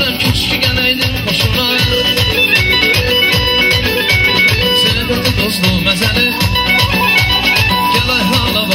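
Loud instrumental dance music from a live band's synthesizer keyboard, played through PA speakers, with a fast steady drum beat under a melody.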